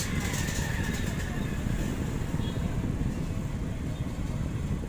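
Steady low rumble of background noise, with a sharp click right at the start.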